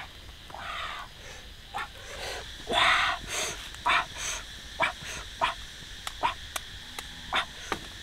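A small dog giving over a dozen short, sharp high-pitched cries at irregular intervals.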